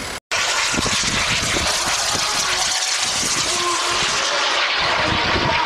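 Aircraft engine noise, a loud, steady rushing that starts after a brief dropout to silence at the very beginning.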